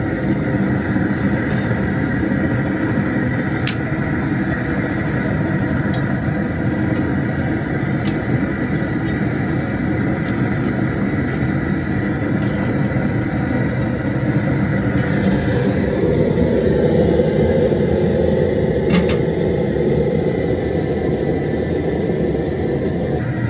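Propane burner running under a large aluminium crawfish boil pot as the water heats toward a boil: a steady rushing noise with a faint high whistle, a little louder from about 16 seconds in. A few sharp clicks come through it, the loudest about 4 and 19 seconds in.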